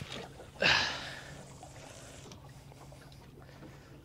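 A fishing rod cast out with a squid-baited rig: a sudden swish about half a second in, then the line running off the reel and fading away over a second or so.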